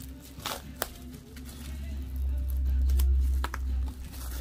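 Hands working at the tight plastic shrink wrap on a boxed album: a few sharp plastic clicks and crinkles, with a low rumble, loudest about two to four seconds in, over background music.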